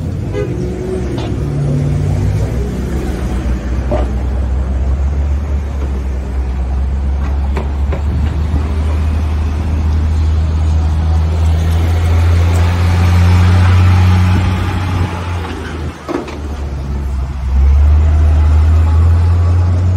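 City street traffic with a steady low engine rumble from vehicles close by. It swells in the middle, and again near the end as a city bus pulls past.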